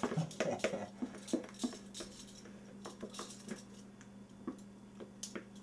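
Irregular light clicks and scrapes of a utensil against a mixing bowl and glass baking dish as thick cheesecake batter is scraped and poured out, over a steady low hum.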